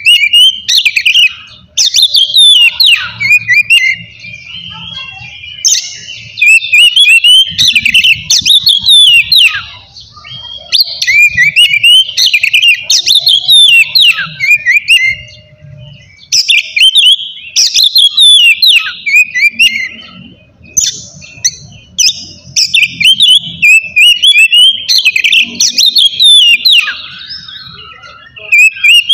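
Oriental magpie-robin (kacer) singing loudly and vigorously: long runs of fast, varied whistles and trills, broken by short pauses every few seconds.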